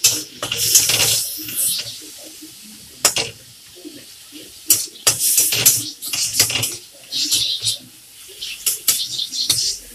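Metal spatula scraping and clinking against a metal wok in irregular bursts as tomatoes for a chutney are stirred.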